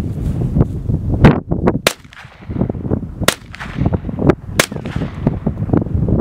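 A Ruger LC Carbine in 5.7×28 mm firing about four single shots, each a sharp crack, spaced roughly one to one and a half seconds apart, with wind buffeting the microphone.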